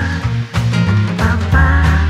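Upbeat background music with a bass line that moves in short steps.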